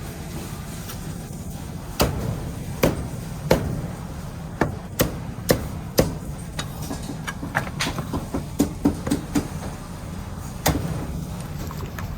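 Cleaver chopping roast meat on a chopping block: a series of sharp, loud chops, spaced out at first, then a quicker run of chops about seven seconds in, over a steady low hum.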